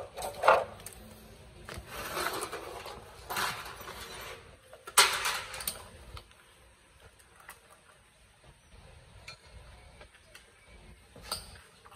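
Metal hand tools and parts clinking and clattering against a metal parts tray: a few loud clatters in the first half, the loudest about five seconds in, then only light occasional clicks.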